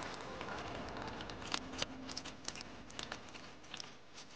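Wet lake mud being worked by hand around a lotus root: scattered soft clicks and crackles, one sharper click about a second and a half in.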